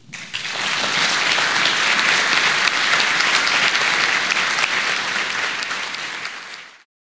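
Audience applauding in a lecture hall, building quickly at the start, holding steady, then fading out near the end.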